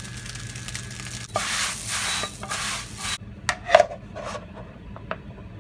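Rough rubbing and scraping for about two seconds, then several sharp knocks as a wooden bowl is set and pressed down on a glass induction cooktop, over a steady low hum.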